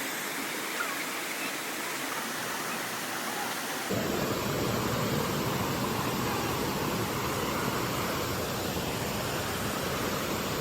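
Mountain stream water rushing over rocks, a steady splashing rush that becomes fuller and louder about four seconds in.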